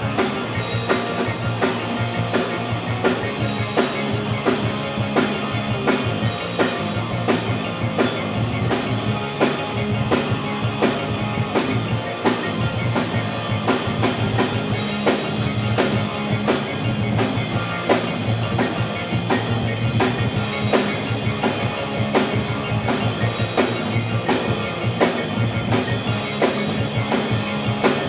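Live rock band playing: a drum kit keeps a steady beat on bass drum and snare under electric bass and electric guitar.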